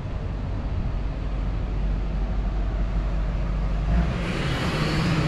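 Pickup truck running as it tows an enclosed trailer across the lot, a steady low rumble. About four seconds in it grows louder and brighter with an engine hum and tyre noise as it comes closer.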